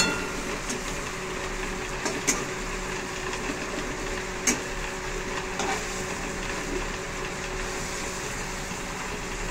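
Batter-coated chicken drumsticks frying in oil in a kadai, a steady sizzle, with a metal spatula turning them and clicking against the pan a few times.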